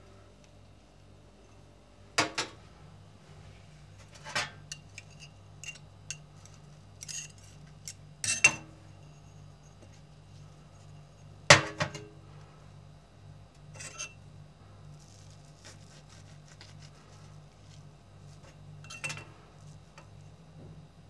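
Kitchen clatter of dishes and cutlery: a dozen or so separate clinks and knocks at uneven intervals, loudest about two, eight and eleven seconds in, over a low steady hum.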